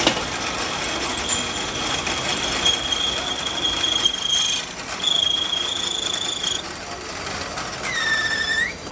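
Metal lathe turning a steel shaft, the cutting tool squealing in a steady high-pitched tone as it cuts, over the noise of the running machine. The squeal breaks off briefly a little past halfway, and a shorter, lower squeal comes near the end.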